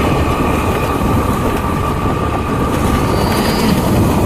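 Steady rumble and road noise of a moving vehicle, with a faint steady whine over it.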